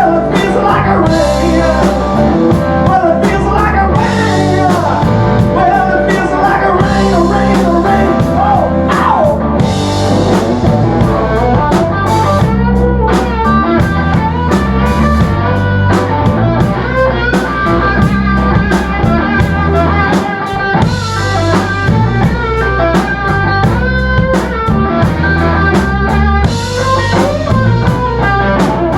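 Live blues-rock band playing an instrumental passage: guitar lines with bent, sliding notes over bass and a drum kit with regular cymbal strokes.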